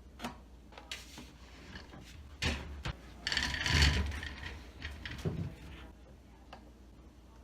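Handling noise: a few scattered knocks and clicks, then a louder scraping rub with a dull thump about three and a half seconds in, and another knock a little over five seconds in.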